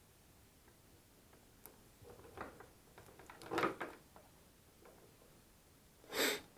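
Small clicks and knocks of objects being handled, busiest about halfway through, with a short, louder rustle near the end.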